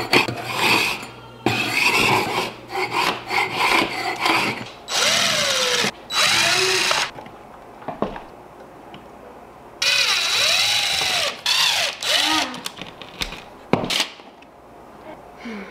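A hand scraper rasping over the bare wall where peel-and-stick backsplash tiles were pulled off. Then a DeWalt cordless impact driver whirs in several short runs, its motor speeding up and slowing, as it backs the screws out of the switch and outlet cover plates. There is a single sharp knock near the end.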